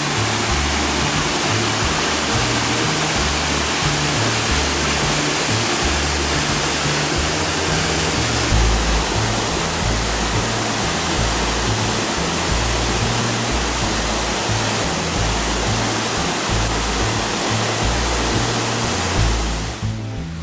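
Rushing water of a mountain stream running high, it seems from recent rain, as it pours over rock slabs and a small waterfall; a steady dense rush that falls away near the end. Background music with a low, stepping bass line plays over it.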